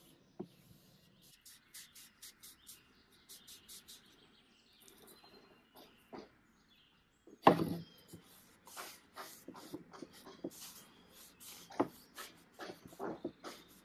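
A cloth rubbing stain onto wooden chair parts in short strokes, with light knocks and clatter as the wooden pieces are handled on a wooden bench. A sharp wooden knock about halfway through is the loudest sound.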